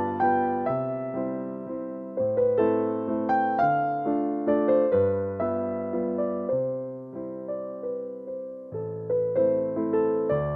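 Background piano music: a melody of struck notes over bass notes that change every second or two.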